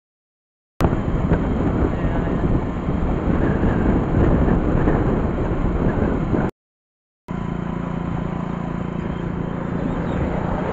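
Outdoor rumble of wind buffeting a phone microphone. After a brief cut to silence, a steady low mechanical hum returns, typical of a vehicle engine.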